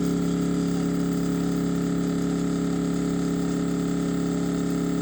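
Shapeoko 4 CNC router's stepper motors humming loudly with a steady drone of several fixed tones after the machine is initialized, during wiring troubleshooting.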